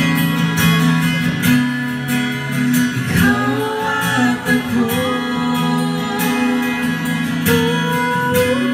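Live acoustic ballad in an instrumental passage: a strummed acoustic guitar holding steady chords, with a melody line moving and bending above it.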